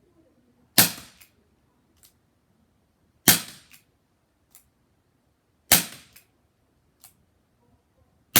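Crosman SNR 357 CO2 air revolver firing four shots, about two and a half seconds apart, the last near the end. Each sharp crack is followed by a faint click or two.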